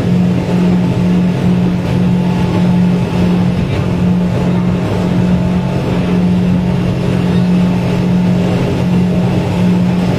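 Suzuki 100 hp outboard motor running at a steady throttle during a sea trial, a loud, even engine drone with no change in pitch.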